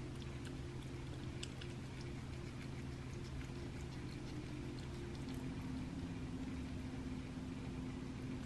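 Domestic cat eating raw meat off a plate, with faint scattered wet clicks of chewing and licking. Under it runs a steady low hum whose pitch shifts about five seconds in.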